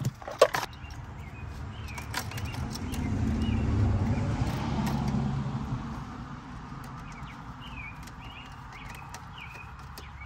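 A vehicle passing by: a low rumble that swells over a couple of seconds and then fades away. A few sharp clicks sound near the start, and birds chirp faintly in the later part.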